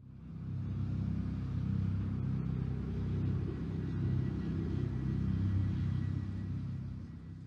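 Low rumbling drone of a TV station ident's sound design, fading in quickly at the start and then holding steady with slow swells, with a faint thin high tone above it.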